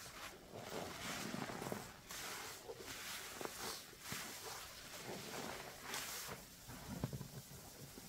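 A sponge loaded with thick Fabuloso-and-dish-soap lather being squeezed and worked by hand, making wet, sudsy swishes in repeated uneven strokes.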